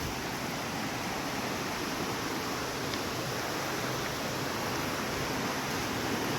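Waterfall on the Narmada River: a steady, even rush of falling water.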